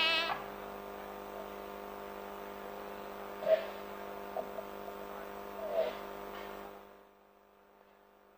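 Music breaks off at the start, leaving a steady electrical mains hum with two brief faint sounds in it. About seven seconds in, the hum drops away to near silence.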